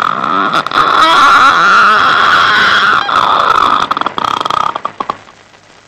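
A man's voice imitating a door creaking open by itself: one long, wavering, creaky squeak that trails off near the end.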